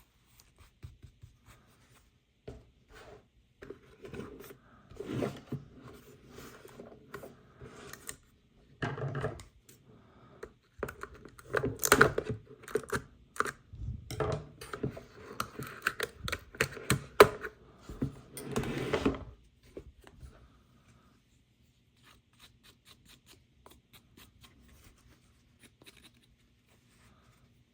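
Toy packaging being opened by hand: irregular scratching, crinkling and tearing with small clicks, busiest from about three to nineteen seconds in, then only a few faint taps.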